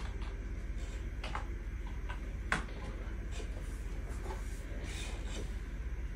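A handful of light clicks and taps, about one a second with the sharpest about two and a half seconds in, as a hand works the bench test gear and computer keyboard. A steady low hum lies under them.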